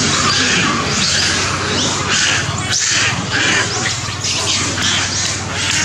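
A continuous, high-pitched mass of animal calls and squawks that swells in waves about every half second, over a faint steady low hum.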